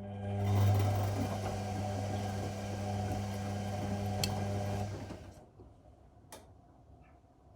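Whirlpool Indiana 1400 washing machine's drum motor humming as it turns the drum, with water and laundry sloshing inside, for about five seconds before stopping. A single sharp click comes about a second later.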